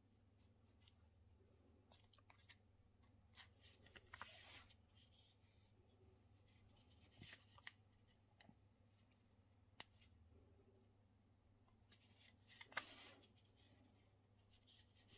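Faint swishes of embroidery thread being drawn through the wrapped thread surface of a temari ball, with small ticks of the needle; the clearest swishes come about four, seven and thirteen seconds in, over a low steady hum.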